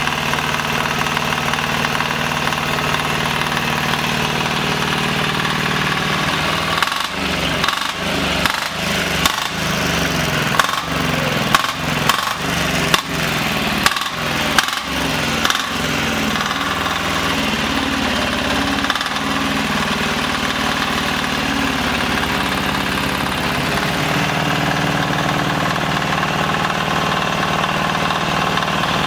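Carver 10 hp single-cylinder air-cooled diesel engine running, freshly started. About a third of the way in, a series of about ten sharp knocks beats through it over some ten seconds; after that the engine speeds up briefly, settles and runs steadily.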